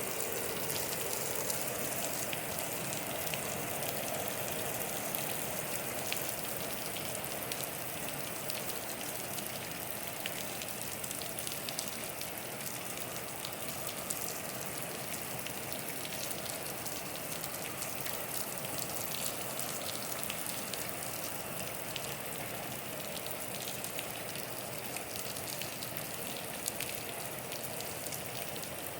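Steady rain falling and pattering on a surface, an even hiss of many small drop impacts.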